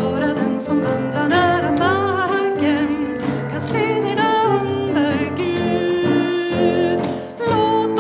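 A woman singing a Swedish song with a slight vibrato, accompanied by digital piano chords and hand-drum strokes from a djembe.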